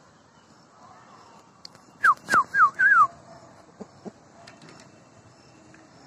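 Four quick whistled notes in a row about two seconds in, each sliding down in pitch, the last with a short lift before its fall. Two faint knocks follow about a second later.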